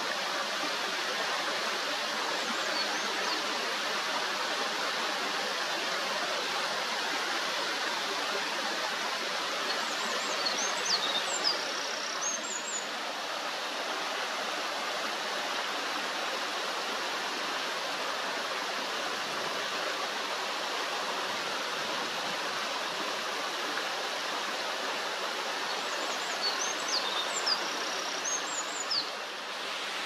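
Mountain stream running over small rocky cascades: a steady rush of water. A bird sings a short phrase of high, quick notes twice, about ten seconds in and again near the end.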